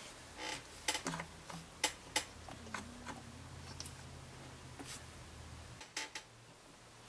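Light, irregular taps and clicks of hands handling a clay sculpture and its wooden stand, over a low steady hum that cuts off near the end.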